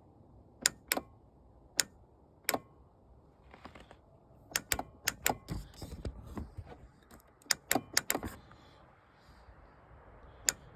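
Sharp clicks in irregular single beats and quick clusters each time the key is turned on a 2010 Yamaha Nitro that won't start, with no cranking. The owner wonders whether the clicking is a relay.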